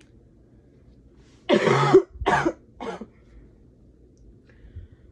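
A woman coughing three times in quick succession, each cough shorter and weaker than the one before.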